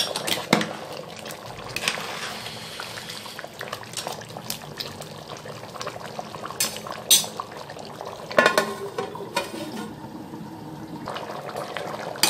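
Pot of rice tahari at a full rolling boil on high flame, a steady bubbling. A few sharp clinks of a metal ladle against the aluminium pot come in, the loudest about seven and eight and a half seconds in.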